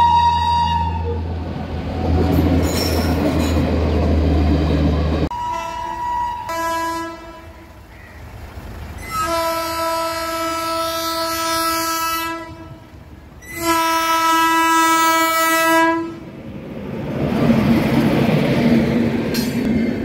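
Indian Railways electric locomotive horns. One blast ends about a second in, then come two short toots, then two long blasts of about three seconds each. Near the end a passenger train rushes past, its wheels clattering over the track.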